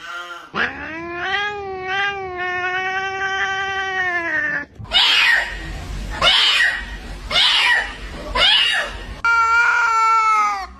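Domestic cat yowling. It gives one long, wobbling caterwaul of about four seconds, then four harsh, noisy screeches about a second apart, then another drawn-out meow near the end.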